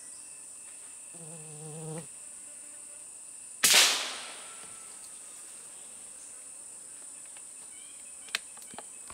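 A single sharp gunshot about three and a half seconds in, fading over about a second, from a hunter's gun in woodland. Steady high-pitched insect buzzing runs underneath, with a short low hum a moment before the shot and a small click near the end.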